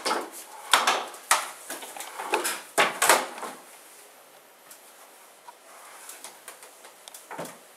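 A run of knocks and scrapes during the first three and a half seconds, then a few faint ticks: a canister vacuum cleaner's metal pipe and hose being handled, with the motor not running.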